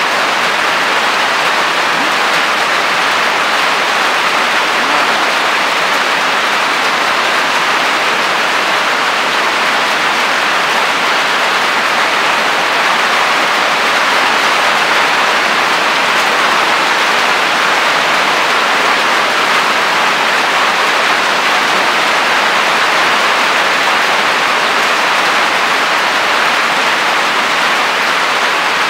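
Rain falling steadily, a constant even hiss with no breaks.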